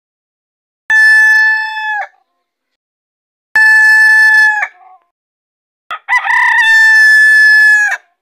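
Rooster crowing three times, each a long, level call that drops in pitch at the end. The third crow is the longest, about two seconds, and starts with a short stutter.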